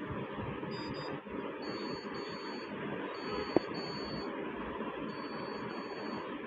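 Steady machine hiss with a high electronic tone that sounds in stretches of about a second, four times, and one sharp click about halfway through.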